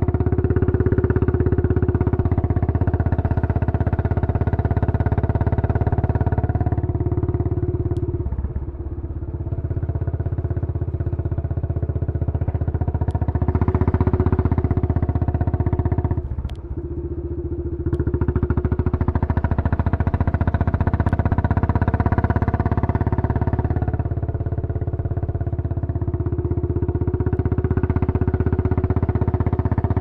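Royal Enfield Bullet 500 single-cylinder engine running through a Punjab Long Bottle silencer, cruising at low revs in a high gear. The exhaust dips briefly twice, about a third of the way in and just past halfway, as the throttle eases and comes back on.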